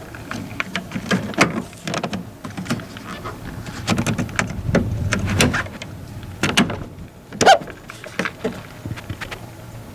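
Irregular creaks and clicks from a 17-series Toyota Crown, with a short squeak about seven and a half seconds in, over a steady low hum: the abnormal noise (異音) reported on the car.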